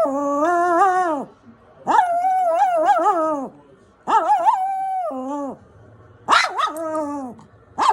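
Toy poodle "talking": four drawn-out, wavering whine-howls of about a second and a half each, with short pauses between, its pitch rising and falling like speech.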